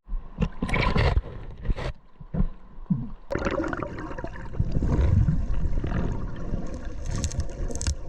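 River water gurgling and rushing, in uneven surges for the first few seconds, then a steadier wash after an abrupt change about three seconds in.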